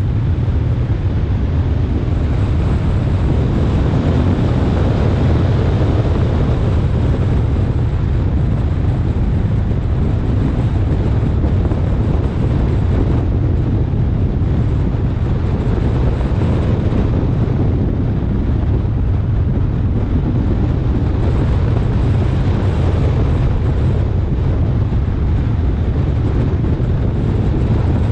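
Steady wind buffeting on the microphone of a camera on a Lamborghini Huracán lapping a race track at about 55 to 80 mph, a constant low rumble with the car's running noise underneath.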